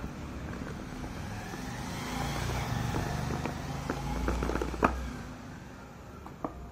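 Cardboard smartphone retail box being handled as its outer sleeve is slid off the inner box: a cluster of scrapes, taps and clicks, with one sharp snap about five seconds in and another tap near the end. A low rumble, like road traffic, runs underneath, swelling in the middle.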